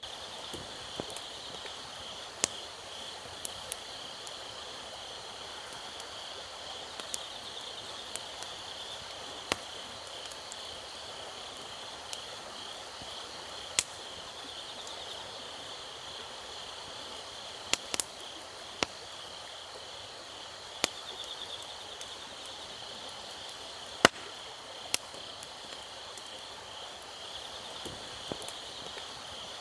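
Wood fire crackling, with irregular sharp pops, the loudest about 24 seconds in, over a steady high trill of insects.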